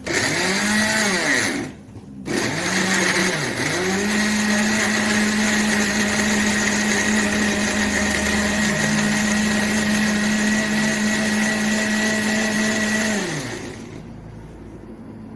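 Electric kitchen blender chopping bilimbi fruit with no water added. It is pulsed in two short bursts, the motor speeding up and slowing each time. Then it runs steadily for about nine seconds before being switched off and winding down near the end.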